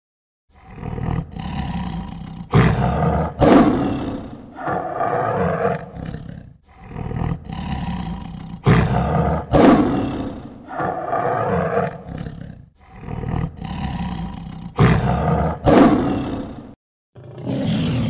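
Tiger roaring and growling: deep, loud roars in three near-identical runs of about six seconds each. Another roar begins near the end.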